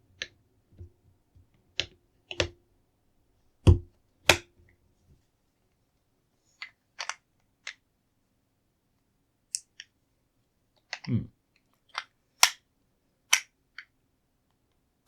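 Plastic LEGO bricks clicking and knocking as a stubborn piece is handled and pressed on, with about fifteen sharp clicks at irregular intervals and a few duller knocks. The piece is being pushed repeatedly because it won't snap into place at first.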